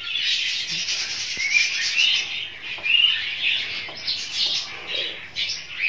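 Many small pet birds chirping at once: a dense, overlapping chatter of short high chirps and quick gliding notes that never lets up.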